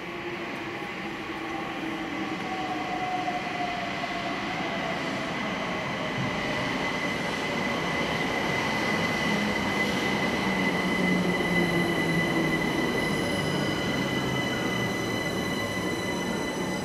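London Overground Class 378 electric train running into the station and slowing. A whine falls steadily in pitch as it brakes, over a steady high tone, and the rail and wheel noise grows louder as it draws alongside.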